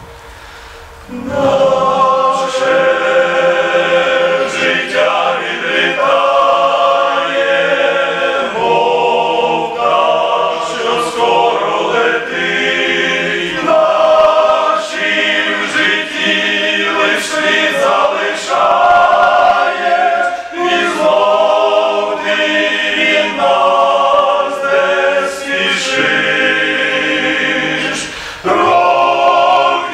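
Men's choir singing a hymn in Ukrainian, coming in about a second in and carrying on in phrases with short breaks between them.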